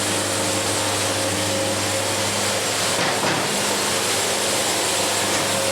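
Band sawmill running steadily while its blade cuts through a log, a continuous machine drone with a steady hum.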